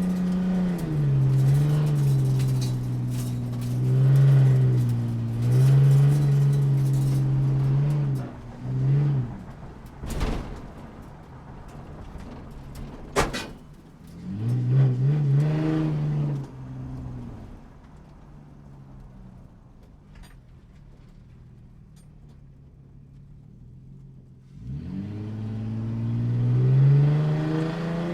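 Motorcycle engine revving and shifting, its pitch rising and falling again and again, with a sharp crack about a third of the way through. It drops low for several seconds, then picks up in one long rising rev near the end.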